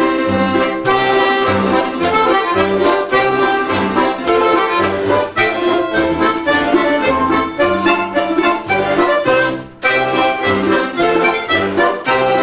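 Folk instrument ensemble playing a lively tune led by accordions, with sustained chords over a steady bass line on the beat. The ensemble breaks off briefly a little under ten seconds in, then plays on.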